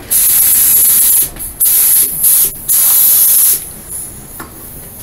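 Compressed-air paint spray gun hissing in three bursts of about a second each, with short gaps between them, as it lays base coat on a plastic bumper.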